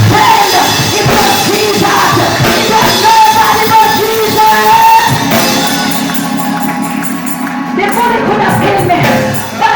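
Loud live church praise music with singing and shouting voices over it; the accompaniment changes to a fast, even pulse about five seconds in.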